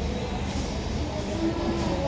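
Dining-room ambience: a steady low rumble with faint background music.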